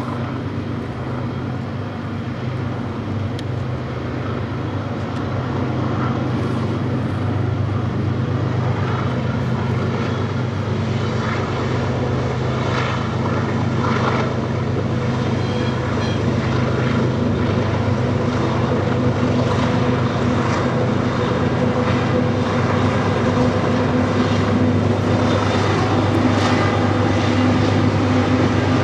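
Diesel-electric locomotives hauling a loaded coal train: a steady low engine drone that grows louder over the first few seconds, with higher engine tones coming in more strongly in the second half as the lead units approach.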